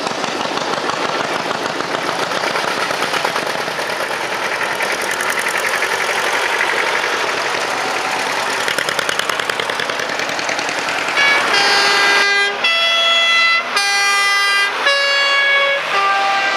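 Vintage tractor engines running as tractors drive past. About two-thirds of the way through, a horn sounds a string of short blasts, each on a different set of pitches, like a tune.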